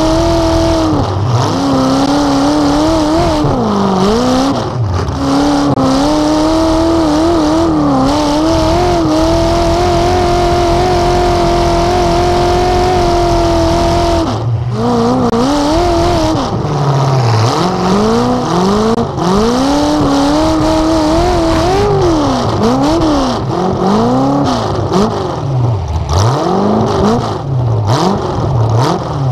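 Demolition derby car's engine revving up and down over and over, held at high revs for several seconds near the middle before dropping off suddenly, with occasional sharp bangs of cars colliding.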